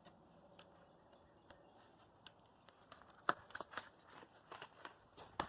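Soft handling sounds of a bicycle inner tube being pulled out from inside the tyre by hand: faint rubber rubbing with scattered light clicks, growing busier with sharper clicks and rustles in the second half.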